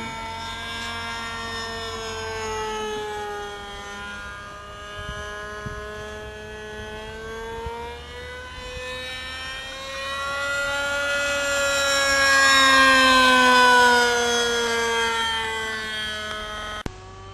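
GMS .47 two-stroke glow engine of an RC model airplane in flight, a steady high-pitched tone whose pitch wavers slowly up and down. It grows louder from about ten seconds in, peaks, then drops in pitch and fades as the plane moves away.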